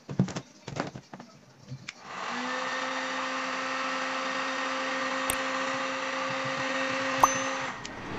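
Handheld electric heat gun running: a steady fan rush with a low hum, starting about two seconds in and stopping shortly before the end, as it heats the polyethylene repair mesh onto a cracked kayak hull. A few light knocks and clicks from handling before it starts.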